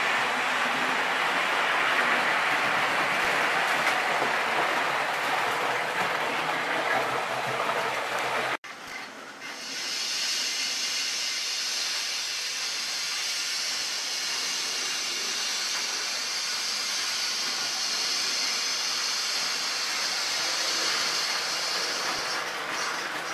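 Gauge 0 / 0m model trains running on metal track: a steady rolling rumble, then after an abrupt cut about eight and a half seconds in, a steady high hiss as a train runs on the layout, fading near the end.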